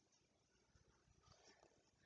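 Near silence: faint room tone in a pause between read-aloud sentences.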